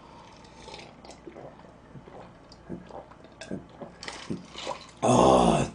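A man swallowing a drink in gulps from a tumbler held to his mouth, with soft, irregular swallowing and mouth sounds. Near the end comes a short, loud vocal sound.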